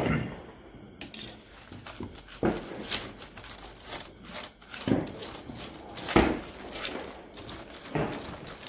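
A plastic sheet crinkling, with irregular soft thumps as hands press and flatten cashew dough under it on a board.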